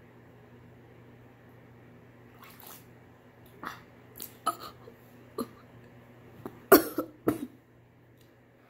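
A person coughing and spluttering water in a string of sharp, irregular coughs after a couple of quiet seconds, the loudest about seven seconds in.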